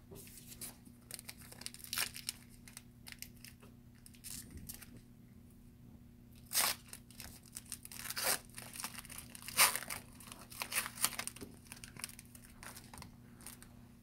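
A Panini Diamond Kings baseball card pack's plastic wrapper being torn open and crinkled by hand. It gives a scattered run of sharp crackles and rips, the loudest near the middle.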